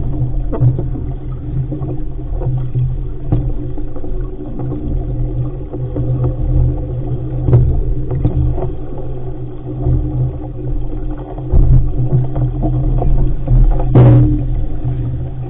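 Wind buffeting and water rushing along the hull of an RS500 sailing dinghy under way in a chop, heard through the boat's mounted camera as a loud, muffled rumble. A sharper knock comes about halfway through and another near the end as waves slap the hull.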